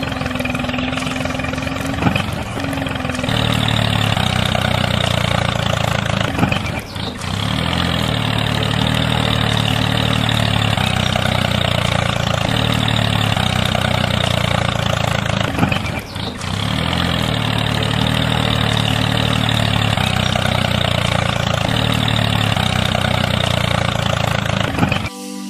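Tractor engine sound running steadily for a miniature model tractor pulling a loaded trailer, its pitch shifting in small steps, with brief dips about seven and sixteen seconds in; it cuts off suddenly just before the end.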